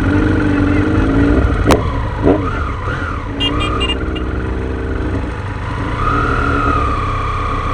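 Motor vehicle engines running, their pitch rising and falling, with a single sharp click just under two seconds in.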